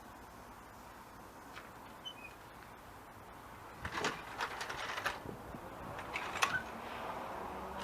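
Clattering knocks and scraping, starting about four seconds in, as the removed VW Beetle engine and its jack are dragged out from under the car.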